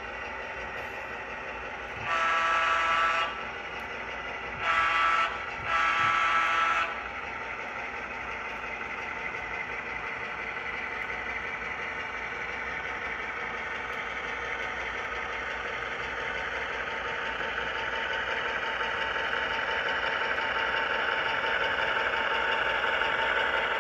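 HO scale model diesel locomotive's onboard sound: three blasts of the air horn about two seconds in, the middle one shorter. A steady diesel engine runs under them and grows louder in the last several seconds as the locomotive shoves its cars.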